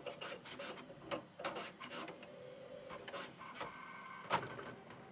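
Bambu Lab H2C 3D printer starting a print: its motors whir in steady tones that shift in pitch, mixed with repeated clicks and knocks as the toolhead and induction hotend rack move, with one louder click about four seconds in.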